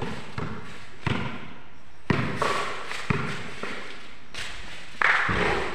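Basketball bouncing on a concrete court: a few separate thuds about a second apart, with a louder burst of noise near the end.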